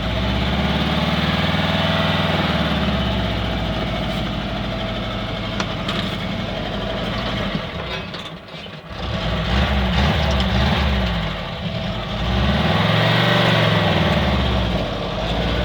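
LuAZ-969A's air-cooled V4 engine pulling the car at low speed, revs rising and falling several times, with a brief drop about eight seconds in.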